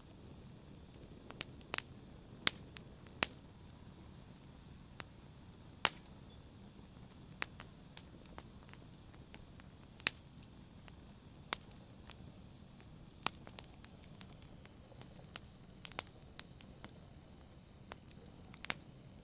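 Wood logs burning in a fireplace, crackling: sharp pops and snaps at uneven intervals, roughly one a second, over a low steady rush of the flames.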